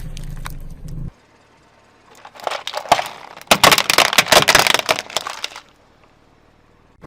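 Brittle things cracking and crunching under a car tyre, a dense run of sharp snaps lasting about three seconds. It is preceded by a low hum that cuts off about a second in.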